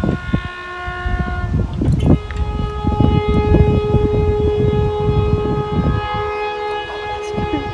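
Train horn sounding one note for under two seconds, then, after a short break, a different note held long. Underneath runs the rumble and clatter of a passing train.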